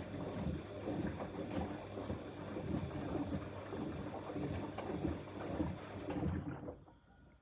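Bosch Exxcel 1400 front-loading washing machine in its wash cycle, the drum turning and sloshing a wet load of teddy bears through the water in uneven swishes; the drum stops turning near the end and the sound drops away.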